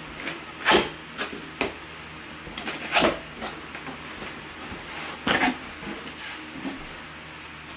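Cardboard shipping box being handled and opened: a handful of short, sharp scrapes and knocks of cardboard and packaging, the loudest about a second in, around three seconds in and again near five and a half seconds.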